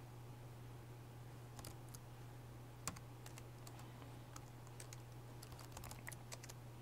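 Faint typing on a computer keyboard: scattered keystrokes in short runs, with one sharper key click about three seconds in, over a steady low hum.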